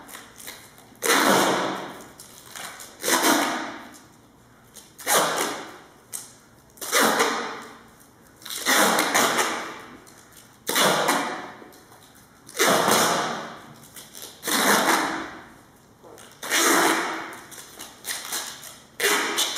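Duct tape being pulled off the roll in long rasping rips, one about every two seconds, as it is wound around a watermelon. Each rip starts sharply and fades over about a second.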